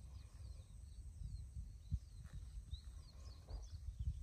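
Faint outdoor ambience: small birds chirping in short high notes over a low, uneven rumble, with one brief knock about two seconds in.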